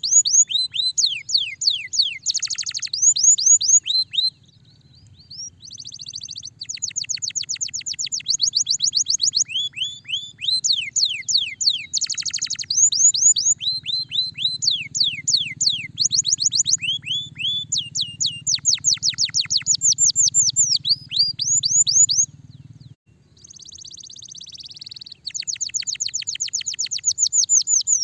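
Domestic canary singing: fast trills of repeated downward-sweeping notes, changing to short buzzy rolls now and then, with a brief lull about four seconds in.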